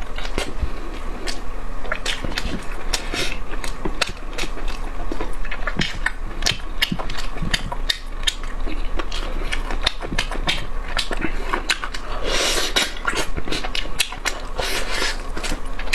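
Close-miked chewing and mouth sounds of a person eating: a dense, irregular run of wet smacking clicks, with a brief rushing noise about twelve seconds in.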